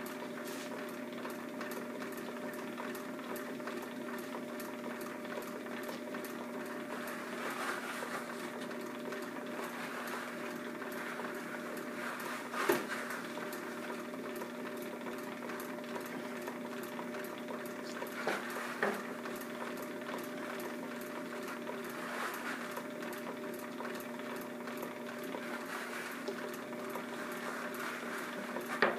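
Electric drum carder running steadily: its motor hums evenly while the belt-driven drums turn, carding fleece. A few sharp clicks stand out about halfway through.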